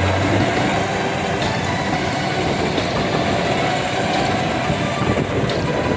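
Kubota DC-70 combine harvester's diesel engine running steadily as the machine cuts rice.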